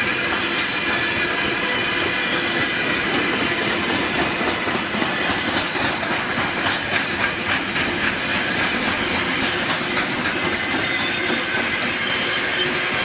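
Container wagons of a freight train rolling past, wheels running on the rails with clickety-clack over rail joints, thickest in the middle, and a steady high squeal.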